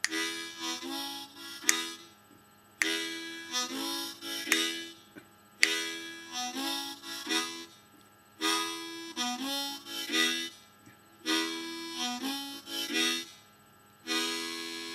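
Key-of-A diatonic harmonica playing a chugga-train rhythm riff on the low 1, 2 and 3 holes, alternating draw and blow chords. The phrase repeats five times, about every three seconds, and a long held chord starts near the end.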